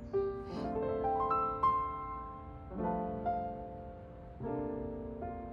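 Piano music: a few sustained chords, the first followed by a short rising melody.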